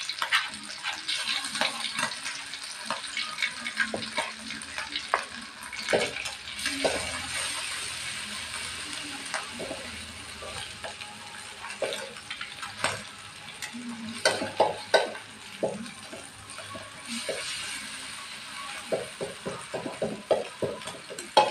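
Spice paste and egg sizzling in hot oil in a silver metal wok while a metal spatula stirs and scrapes it, with repeated clinks and scrapes of the spatula against the wok. The strokes come in quicker runs about two-thirds of the way through and again near the end.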